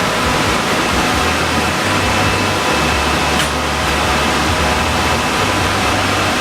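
Commercial kitchen ventilation running: a steady, loud rush of air with an uneven low hum underneath and a faint steady whine.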